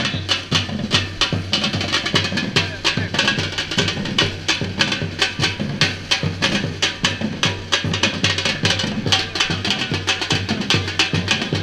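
Samba-reggae drum ensemble playing: deep bass drums under quick, sharp snare and hand-drum strikes in a dense, steady groove.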